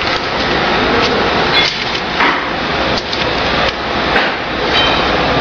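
Xsheen A3+ electric business card cutter running: a steady mechanical whir broken by a sharp knock every half second to second as sheets are fed and cut into cards.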